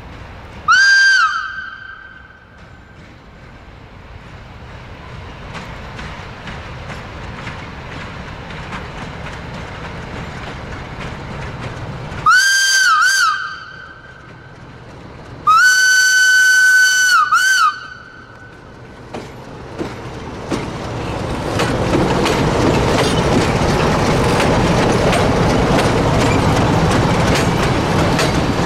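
Whistle of a CFR 060-DA (LDE2100) diesel-electric locomotive, which is known for its whistle. It gives a short blast about a second in, two short toots around twelve seconds and a long blast about fifteen seconds in, each sliding up in pitch at the start and dipping as it stops. Then the locomotive's Sulzer diesel engine and the wheels clattering over the rail joints grow loud as the train passes close by.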